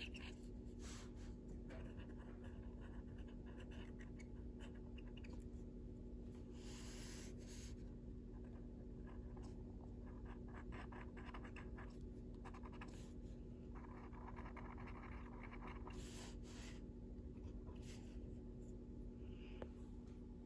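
Soft-core Faber-Castell Black Edition coloured pencil rubbing on paper in small circular blending strokes. The scratching is faint and comes in short runs with pauses, over a steady low hum.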